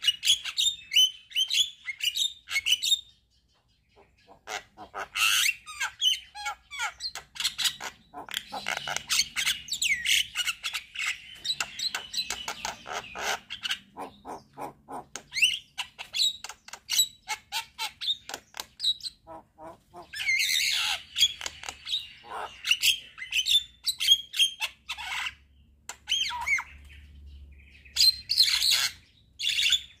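Javan myna singing a long, varied song of rapid clicks, chattering runs and harsh squawky notes, broken by a brief pause about three seconds in.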